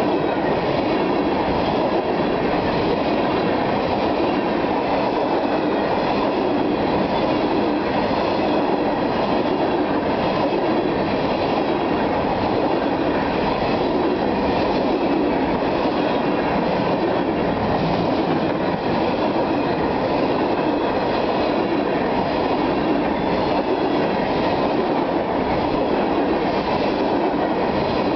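Freight train of hopper cars rolling steadily past: continuous rumble and clatter of steel wheels on the rails.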